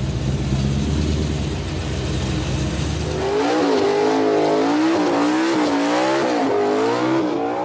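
Supercharged 6.2 L LS3 V8 with a 2.9 L Whipple blower, running on a chassis dyno. It runs at lower revs, then about three seconds in it jumps to high revs, the pitch wavering up and down, and it drops away at the very end. The crew think it was a low-boost run.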